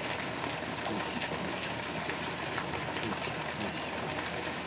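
Steady splashing hiss of water spraying from a garden hose onto wet ground.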